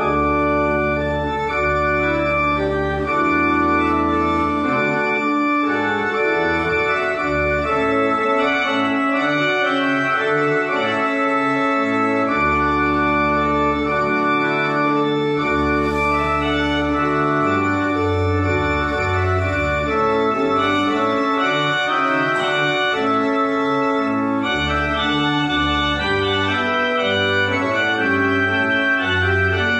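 Church pipe organ playing a closing voluntary: slow, sustained chords over deep held bass notes, changing every second or two.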